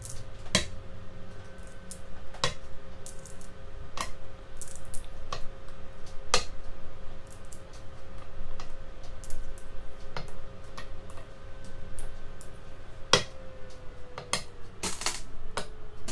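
Go stones being set down one at a time on a board: about a dozen sharp clacks at irregular intervals as moves are played out, with a faint steady hum underneath.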